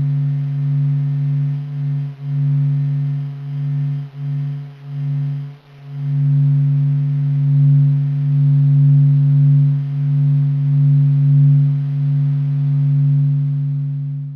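Sonification of the Sun: a low, steady electronic hum with a few faint overtones, swelling and dipping in loudness with brief dips about 2, 4 and 5.5 seconds in, then steadier and fuller from about 6 seconds in.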